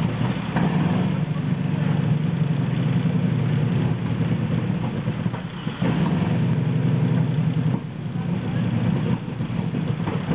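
Sherman tank engine running steadily at idle, its level dipping briefly a couple of times.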